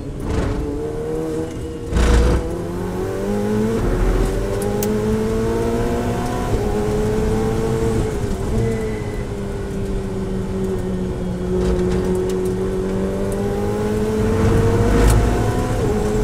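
Ferrari 488 Challenge's twin-turbo V8 heard from inside the cockpit, running hard under acceleration on track. Its pitch dips and climbs again as it shifts gears and eases off. There are two sharp knocks, one about two seconds in and one near the end.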